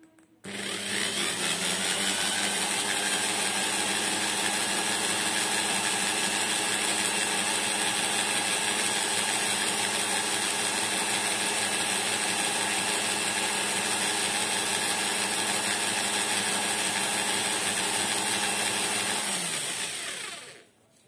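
Electric drill spinning a plastic bobbin to wind enamelled copper wire into an inductor coil. The motor spins up about half a second in, runs at a steady speed, then slows and stops near the end.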